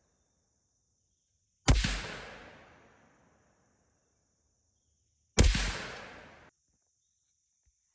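Two rifle shots from a .223 Savage Axis II Precision fitted with a muzzle brake, a few seconds apart, each a sharp crack with a long echo trailing off; the second echo is cut off abruptly.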